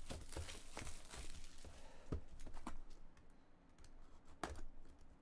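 Plastic shrink-wrap on a sealed trading-card box crinkling and tearing as it is handled and slit open with a utility knife. A run of short crackles and clicks for the first few seconds, a quieter spell, then another burst near the end.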